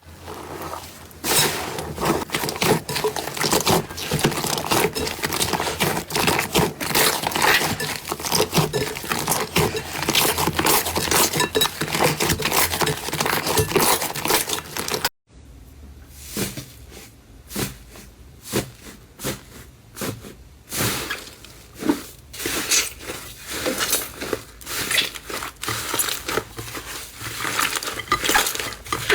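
Slime being squeezed and pressed by hand, giving dense crackling and popping clicks. The sound cuts off abruptly about halfway through, then resumes with sparser, separate crackles and pops.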